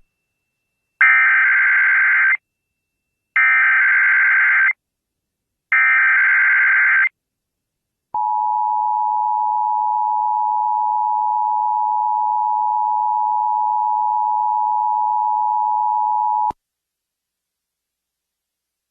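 Emergency Alert System test signal: three short SAME header data bursts about a second apart, then the steady two-tone EAS attention signal held for about eight seconds before cutting off suddenly.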